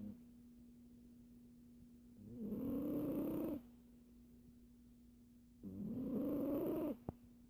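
Siamese cat snoring in its sleep: two rasping snores, each lasting a little over a second, about three and a half seconds apart.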